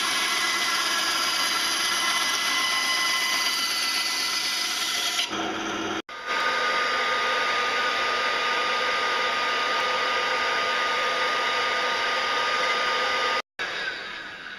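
Small bench band saw running and cutting through a PVC pipe fitting. After a brief break, a motor runs steadily with a thin whine, then winds down smoothly near the end as it is switched off.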